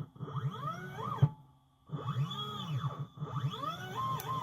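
Stepper motors of a TinyG-controlled CNC machine whining through a few jog moves. Each move is a pitched whine that climbs and then falls as the axis speeds up and slows down, with short pauses between moves.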